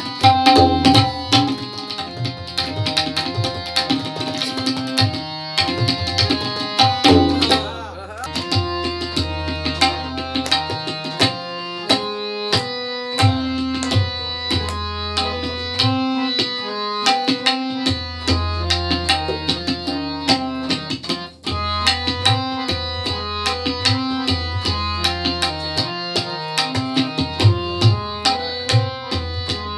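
Tabla solo: rapid, dense strokes on the dayan and bayan, with the bayan's deep resonant booms held in places. A harmonium plays a repeating melodic loop under the drumming to keep the cycle.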